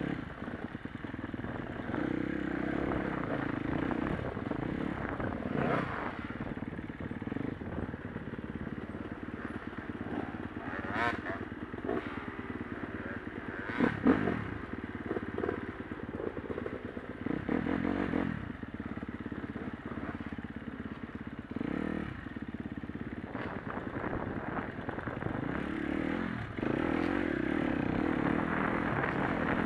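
Dirt bike engine running under constantly changing throttle on a rough woodland trail, with clatter and knocks as the bike bounces over the ground. The sharpest knock comes about fourteen seconds in, and the engine gets louder near the end.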